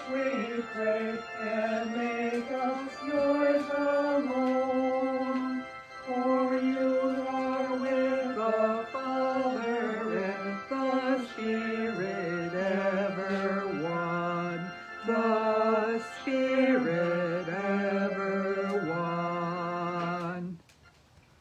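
A hymn sung with organ accompaniment, moving in slow held notes from chord to chord. The last chord stops abruptly shortly before the end.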